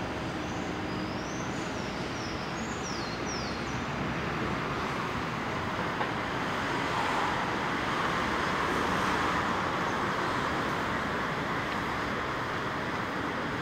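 Steady city traffic noise from the avenue below, swelling as a vehicle passes about halfway through. A few short high chirps sound in the first few seconds.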